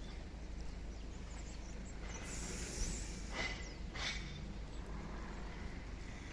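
Grazing horse snorting twice, two short breathy blows about three and four seconds in, over a steady low rumble.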